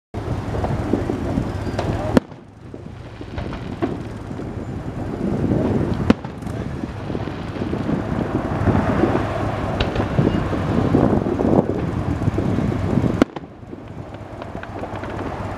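Fireworks-display ambience: a steady low rumble of crowd noise and wind on the microphone, broken by three sharp cracks about two, six and thirteen seconds in.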